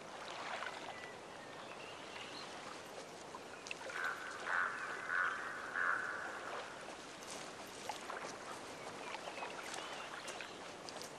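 Quiet shoreline ambience with water lapping, and a bird calling in three short bursts about four seconds in.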